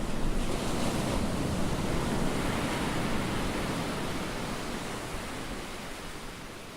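Rushing sea water, a steady wash of noise that swells at the start and slowly eases off.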